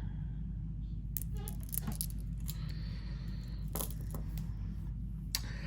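Small packets of jewelry-making supplies being handled: a few short crinkles and light clinks, over a steady low hum.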